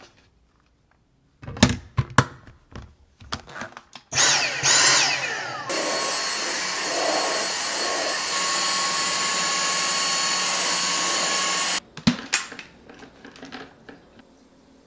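Clicks and knocks as a Dyson cordless stick vacuum is handled and closed up. Then its motor starts with a rising whine, runs steadily with a high whine for about six seconds, and cuts off suddenly. A couple of clicks follow.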